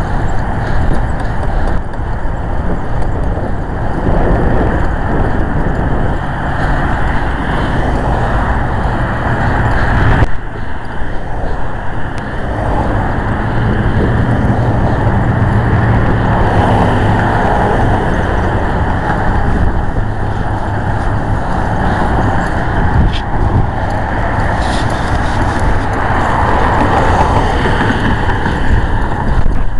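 A motor vehicle running steadily: a low engine hum under loud rushing noise, with a brief dip about ten seconds in.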